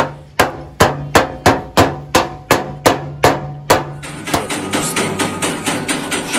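Hammer striking metal in a steady rhythm, about three ringing blows a second. About four seconds in the blows stop and a denser, continuous noise takes over.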